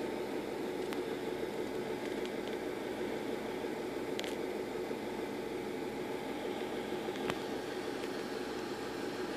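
Steady motor hum with a hiss, and a few faint clicks scattered through it.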